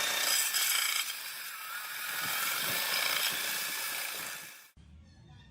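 A power tool running against the metal of a rusted katana blade, a steady harsh hiss of rust removal. It cuts off abruptly near the end, leaving a much quieter background.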